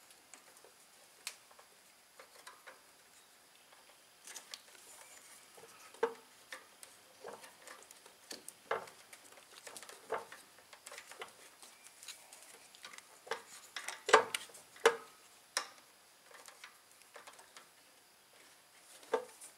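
Hands working a small engine's new ignition coil wire and plug cap into place: scattered light clicks and taps, with a few sharper knocks about three-quarters through.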